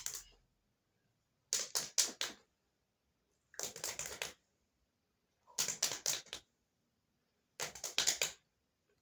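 Short bursts of sharp crunching clicks, four of them about two seconds apart, with silence between.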